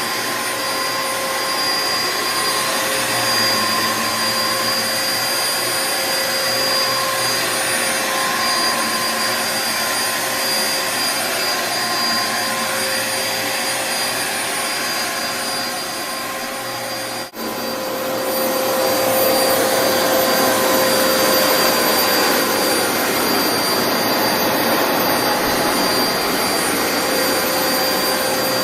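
Dyson DC07 Animal bagless upright vacuum cleaner running steadily, a rushing airflow with a high motor whine. It cuts out for an instant about two-thirds of the way through, then carries on a little louder.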